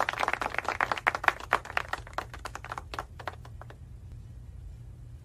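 Hand clapping dying away. Dense claps thin to a few scattered ones and stop about three and a half seconds in, leaving a low steady hum.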